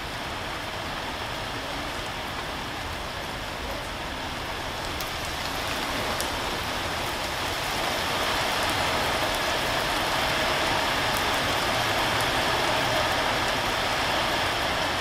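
Steady rain falling, an even hiss with a few scattered drop ticks. It grows heavier between about five and eight seconds in and holds at that strength.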